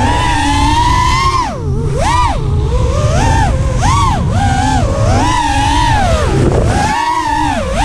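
Brushless motors of a 5-inch FPV racing quadcopter (2300 KV motors) whining, the pitch swooping up and down again and again with the throttle, over a constant low rumble.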